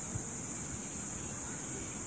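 Steady, high-pitched chorus of insects in the surrounding forest, with a low wind rumble on the microphone.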